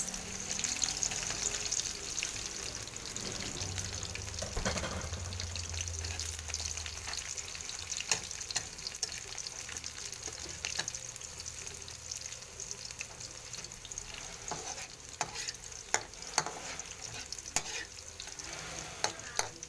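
Chopped garlic and onion sizzling in hot oil in a wok, with a steady frying hiss. A spatula stirs them, scraping and clicking against the wok now and then.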